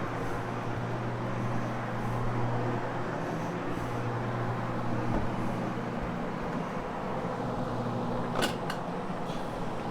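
Carpet-cleaning floor machine running steadily, its motor humming as a hog's hair fibre pad scrubs the carpet. A sharp click about eight seconds in.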